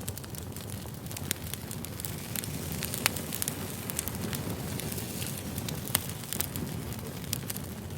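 Wood fire burning: a steady low rumble of flames with frequent sharp crackles and pops from the burning logs, a few pops louder than the rest.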